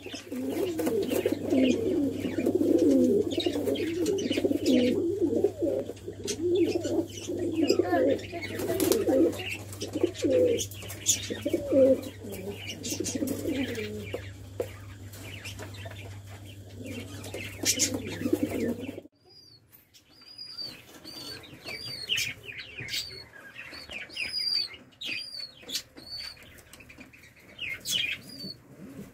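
Domestic pigeons cooing, several at once and overlapping, over a steady low hum. About two-thirds of the way through this cuts off abruptly, giving way to quieter sound with a run of short, high chirps.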